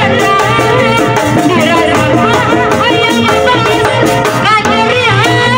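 Sundanese tanji street band playing live through horn loudspeakers. A wavering lead melody carries over a steady beat of drums and gongs.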